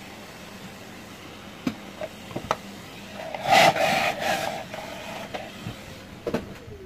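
Hard plastic parts of a stick vacuum's dust container and filter assembly being handled: a few sharp clicks, then a scraping rub lasting about two seconds.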